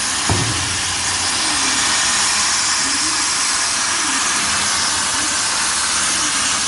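Loud, steady hiss of gas rushing out under pressure, with a short knock shortly after it begins.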